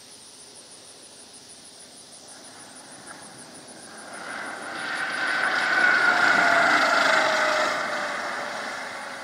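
Jabiru light-sport aircraft rolling past on the runway after touchdown, its engine and propeller growing louder to a peak about two-thirds of the way through, then fading with the pitch dropping as it goes by.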